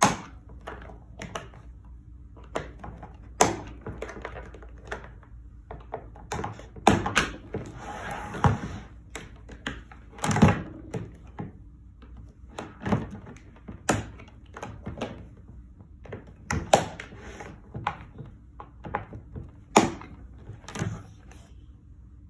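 Retaining clips of a CommScope OFDC-B8G fibre-optic closure being levered shut with a screwdriver: irregular sharp plastic clicks and knocks, a dozen or so louder ones among smaller taps, as the plastic dome and base are handled on a tabletop.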